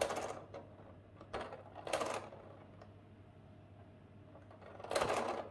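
Crank of an 1897 Payen P3A arithmometer, a stepped-drum mechanical calculator, turned three full turns. Each turn is a short clatter of gears and carry mechanism; the turns come near the start, about two seconds in and about five seconds in. Each turn adds the set number 432 once, multiplying it by 3 through repeated addition.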